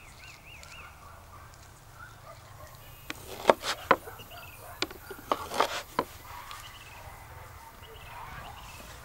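Small birds chirping over a quiet outdoor background, with a run of about eight sharp knocks in the middle.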